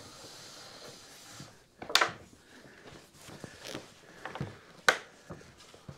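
Wooden stud-wall framing knocking and clunking as a pre-built 2x4 wall is stood up and shifted into position, with two sharp loud knocks about two seconds and five seconds in and several lighter knocks between.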